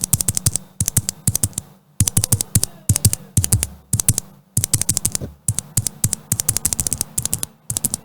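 A loose blue mechanical keyboard switch, not fitted to a keyboard, pressed over and over in quick runs: sharp, crisp clicks, several a second, with brief pauses between runs. The blue is the clicky type and the loudest of the switches.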